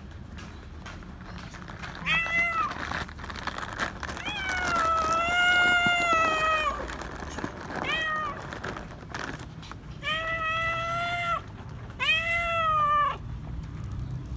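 Tabby cat meowing loudly five times: a short meow, then a long drawn-out one of over two seconds, then three shorter meows.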